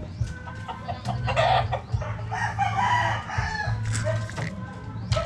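Chickens clucking, with a rooster crowing.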